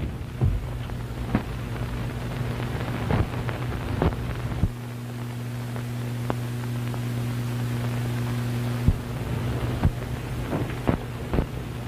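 Early sound-film soundtrack with no dialogue: a steady low hum and hiss, broken by irregular clicks and pops. The hum grows stronger from about five seconds in until about nine seconds in.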